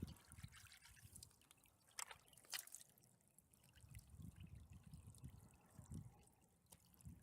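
Faint trickle of a small snowmelt runoff stream, with two sharp clicks about two seconds in and some light low wind buffeting on the microphone in the second half.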